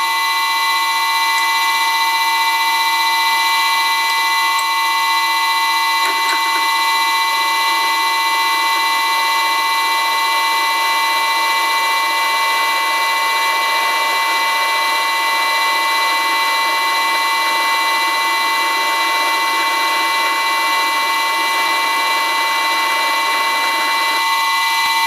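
Karger lathe motor driven by an old Allen-Bradley VFD, giving a loud, steady whine of several high tones at 30 Hz, about 255 RPM. A 10 mm twist drill cuts into the spinning workpiece, adding cutting noise from about six seconds in until near the end.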